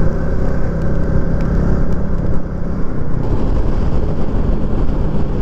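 Small motorcycle riding at a steady cruise, its engine running under heavy wind and road rush on an on-board microphone. The sound changes abruptly about three seconds in.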